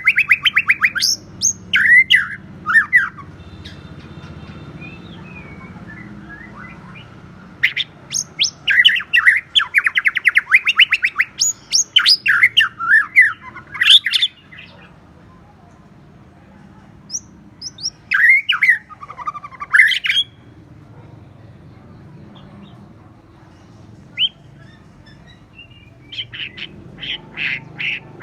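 White-rumped shama singing in several bursts of song with pauses between them. The song mixes clear gliding whistles with fast runs of rapidly repeated notes, the bubbling 'kéo thuốc lào' (water-pipe drawing) song type.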